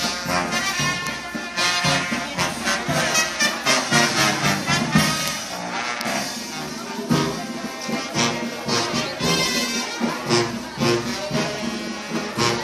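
Brass band playing a lively tune in a street procession, trumpets and trombones over a steady beat.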